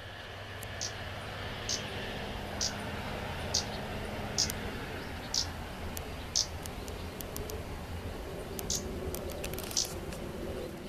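Kamchatka leaf warbler giving its short, sharp call notes, about one a second with a brief pause past the middle, over a steady low background hum.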